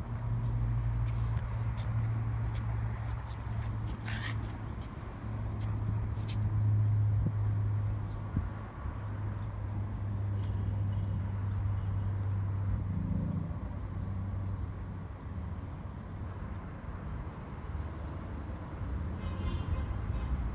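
A steady low mechanical hum runs under the work, with scattered light clicks and taps and a short rattle near the end.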